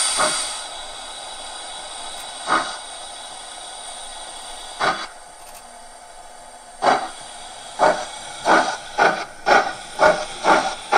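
Steam sounds from the ESU LokSound 5XL sound decoder of a Gauge 1 class 52 steam locomotive model, played through its loudspeaker. A hiss of steam dies away at the start. Then exhaust chuffs come slowly at first and quicken to about two a second as the locomotive pulls away.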